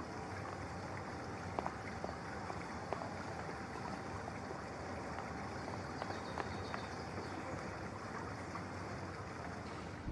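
Steady background hiss of a large indoor space, with a few faint clicks and ticks scattered through it.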